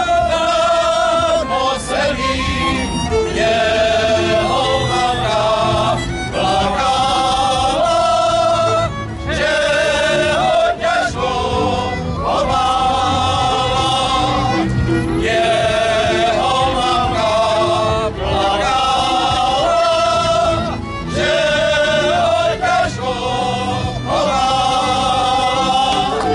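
A group of men singing a folk song together in phrases of a few seconds each, with short breaks between them.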